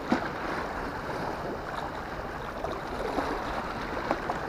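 Sea water lapping and sloshing at the water's edge, with one sharp knock near the start.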